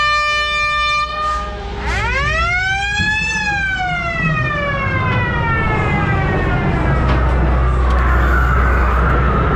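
A steady horn tone cuts off about a second and a half in. A siren then winds up for about a second and a half and slowly winds down over the next four seconds, over a steady low rumble.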